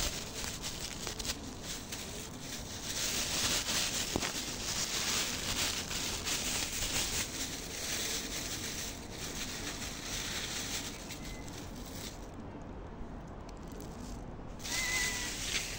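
Crinkling and rustling of a bag of dry cat food being handled, a light crackly patter with no steady tone. A short high call near the end.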